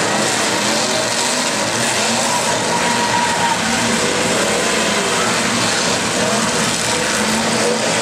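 Many demolition derby cars' engines running and revving at once, a loud continuous mix of engine noise rising and falling in pitch.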